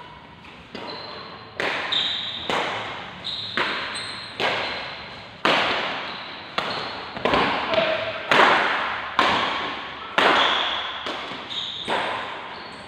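Badminton rackets striking a shuttlecock back and forth in a fast doubles rally, a sharp smack roughly every second, each hit echoing through a large hall.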